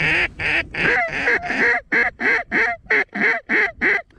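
Hand-blown mallard duck call sounding a steady series of loud, raspy quacks, about three a second, as hunters call to incoming mallards.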